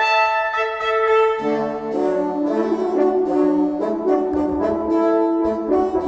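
Background music led by brass, with sustained horn-like notes and a lower part joining about a second and a half in.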